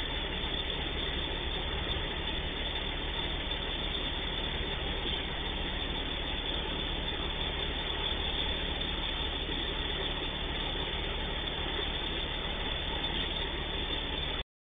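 Diesel engine of a yellow railway track maintenance machine idling steadily.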